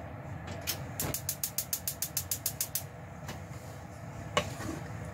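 Gas stove's spark igniter clicking rapidly, about eight clicks a second for roughly two seconds, then a single sharp click near the end.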